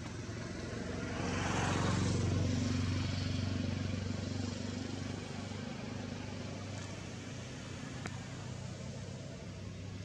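Engine hum of a passing motor vehicle, swelling to its loudest about two seconds in and then falling back to a steady low drone.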